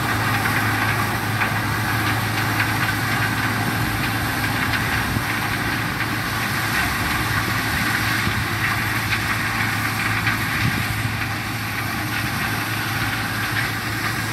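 Case IH tractor's diesel engine running steadily under load as it drives a tractor-mounted corn harvester, with a constant crackle of dry corn stalks being cut and fed into the machine.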